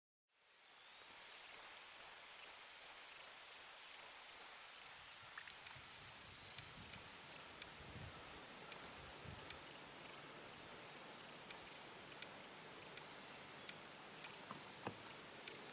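Crickets chirping at night: a steady high trill with short chirps repeating evenly about two and a half times a second, starting abruptly after a moment of silence.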